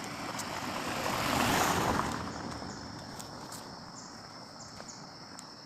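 A vehicle passes by, its noise swelling to a peak about a second and a half in and then fading away. Under it runs a steady, high-pitched drone of insects.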